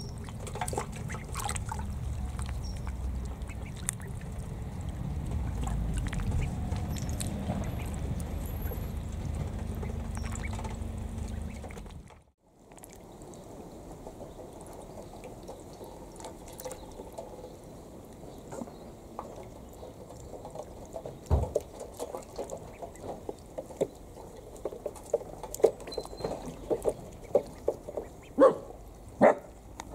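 Indian Runner ducklings splashing and dabbling in a shallow tray of water, with duckling calls. A low rumble fills the first twelve seconds, then after a brief break come quick, sharp splashes that grow busier near the end.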